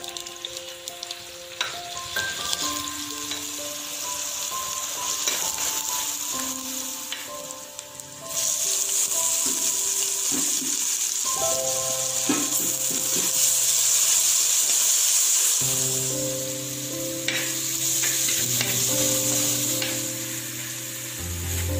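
Crushed ginger and garlic sizzling in hot oil in a pot. The sizzle grows louder about eight seconds in as chopped onion and green chillies go in, and near the end they are stirred with a spatula. Light background music plays underneath.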